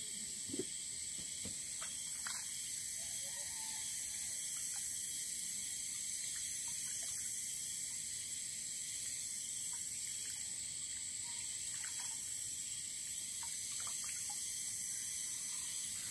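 Steady high-pitched outdoor background hiss, with a few faint clicks and knocks.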